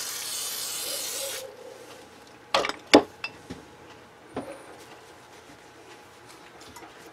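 WD-40 aerosol can spraying, a steady hiss that cuts off about a second and a half in, followed by a few sharp knocks.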